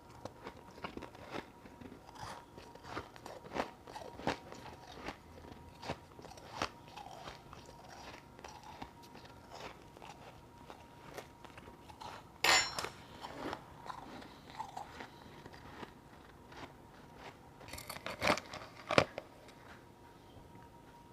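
Close-up crunching and chewing of powdery ice chunks (refrozen freezer frost): a run of small, irregular crunches, with louder bites about twelve seconds in and twice more near the end.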